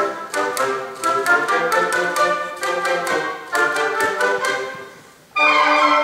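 Oboe and bassoon band playing, with a manual typewriter's keys clicking rapidly along with the music as a percussion part. About five seconds in the music dies away briefly, then the band comes back in loud with held notes.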